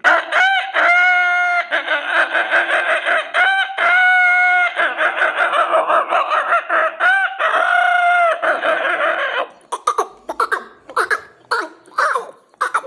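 A man's vocal mimicry of a poultry farm: many hens clucking and cackling at once, broken by three long rooster-style crows. About nine and a half seconds in, the crowd thins to separate short clucks.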